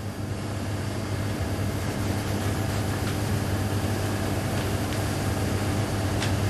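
Steady background hiss with a low, even hum, and no distinct events.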